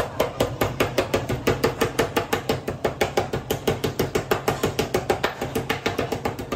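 Metal meat mallet pounding thin slices of raw beef through plastic wrap on a cutting board, flattening the meat: fast, even thuds at about six a second.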